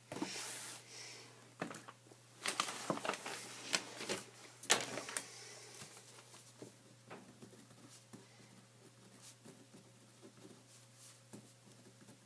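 Handling noise on a tabletop: a rustle, then a cluster of clicks and scratchy rustles about three to five seconds in, fading to faint scattered ticks.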